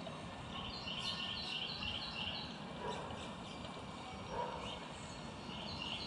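A songbird singing a fast run of about six repeated two-part phrases, then starting the run again near the end, over a steady outdoor background hum.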